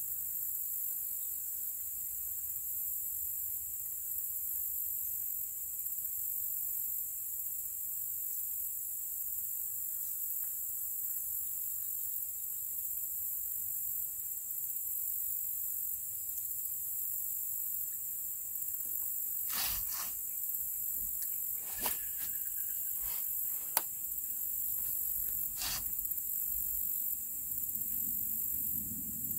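Steady high-pitched insect chorus, like crickets, with a handful of sharp knocks about two-thirds of the way through and a low rumble near the end.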